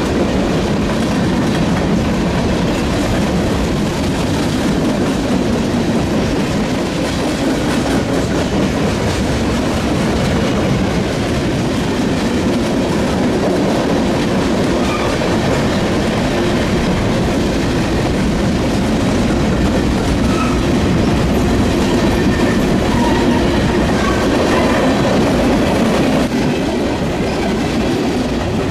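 Train rolling past on the shoo-fly detour track: a loud, steady rumble of wheels on rail that holds level throughout.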